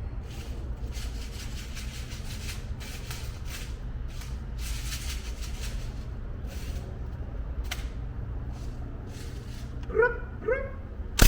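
Bursts of rapid fire from a CO2 full-auto BB gun, the BBs clattering into the BB trap, over a steady low hum. Near the end a dog gives two short barks, followed by a single sharp crack.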